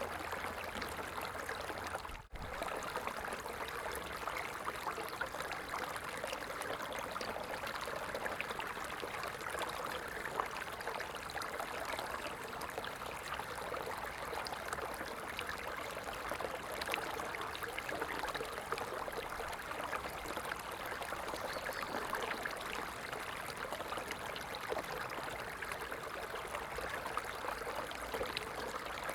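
A stream of water flowing and babbling steadily, with a brief dropout about two seconds in.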